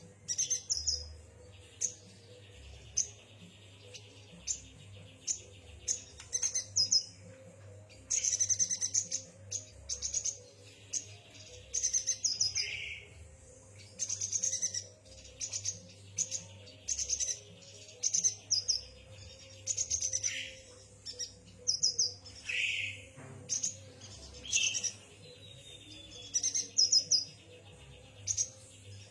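Yuhina chirping: quick runs of short, high chirps repeated every second or two, with buzzy trills between them. A faint steady low hum underneath.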